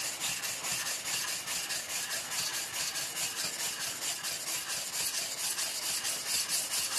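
Coarse 220-grit flattening stone rubbed back and forth over a Shapton Glass #500 whetstone, a gritty scraping at about four strokes a second. The whetstone is being lapped flat, worked until its pencil lines are ground away.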